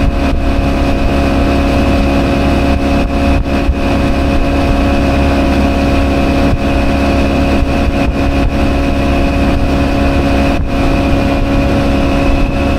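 Outboard motor running steadily, well below full throttle, pushing a small aluminum fishing boat across a lake: a constant engine drone with a deep rumble.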